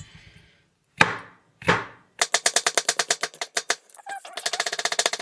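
Kitchen knife chopping mushrooms on a cutting board: two separate cuts, then two quick runs of rapid chopping at roughly ten strokes a second, with a short pause between them.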